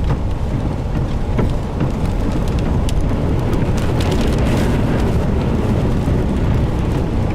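Steady low rumble of road and engine noise inside a moving car's cabin, with faint scattered light ticks.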